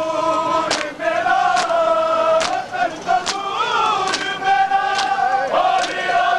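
Crowd of men chanting a nauha (mourning lament) in unison in long held lines, with sharp hand slaps of matam (chest-beating) keeping time a little more than once a second.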